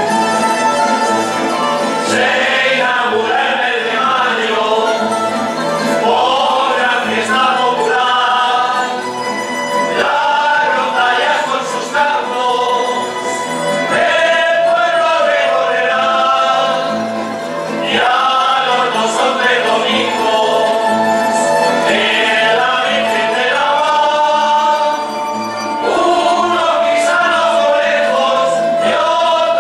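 Men's group singing a traditional mayo song together, accompanied by a rondalla of strummed and plucked Spanish guitars and bandurria- and laúd-type instruments, with held notes at the ends of phrases.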